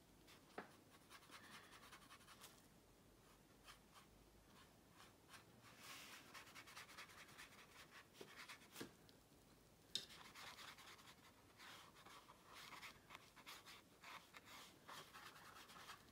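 Faint, soft scratching of a wet paintbrush stroking across textured watercolour paper, in stretches with short pauses, with a few faint ticks.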